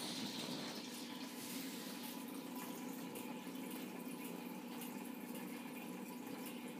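Aquarium water bubbling and trickling steadily in a small turtle tank, with faint tiny drips and a steady low hum underneath.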